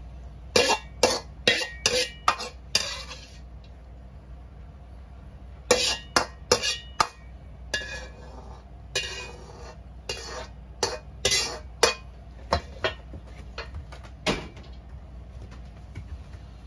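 Metal ladle clanking and scraping against a wok as stir-fried pea shoots are scooped out onto a plate. There is a quick run of about six sharp clanks near the start, another run about six seconds in, then scattered single knocks until about fourteen seconds in.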